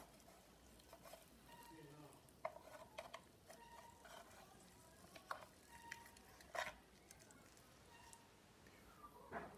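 Faint scrapes and knocks of a wooden spatula against the nonstick plate of an electric sandwich maker as a fried egg is loosened and lifted off. There are about half a dozen short, separate scrapes, spread through the few seconds.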